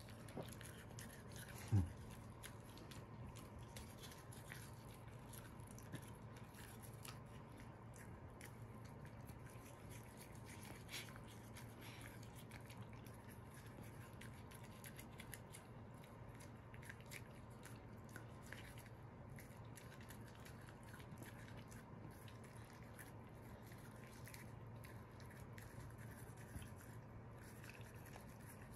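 Faint, scratchy strokes of a small toothbrush brushing a dog's teeth, over a steady low hum, with a single knock about two seconds in.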